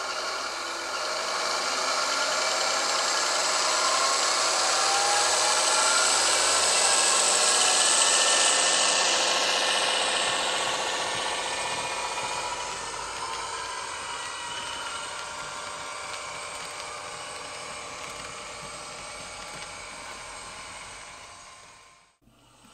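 H0-scale ESU class 216 model diesel locomotive running with its sound decoder playing the diesel engine, mixed with the rumble of its wheels and wagons on the model track. The sound grows louder as the train passes, fades as it moves away, and cuts out near the end.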